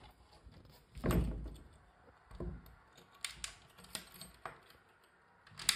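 A wooden cupboard door closes with a thud about a second in. A key with a dangling tag then rattles and clicks in the door's lock several times.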